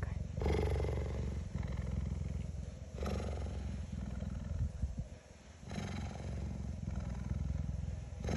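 Cheetah purring loudly, a fast, rumbling pulse that changes character with each breath and briefly drops away about five seconds in.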